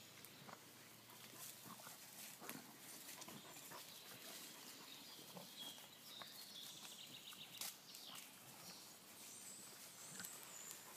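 Near silence: faint outdoor ambience with scattered small rustles and clicks, and a few faint high chirps.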